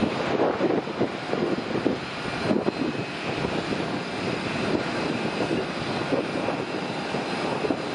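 Airbus A320neo's Pratt & Whitney PW1127G geared turbofans at takeoff thrust as the jet climbs away just after liftoff: a steady, crackling rumble with a faint high whine above it.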